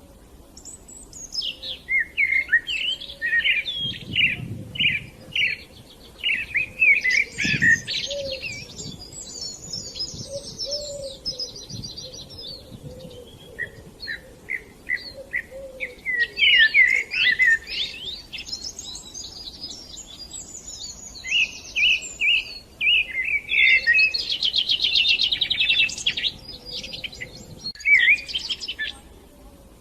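Songbirds chirping and trilling, a busy run of short, quick notes with brief pauses.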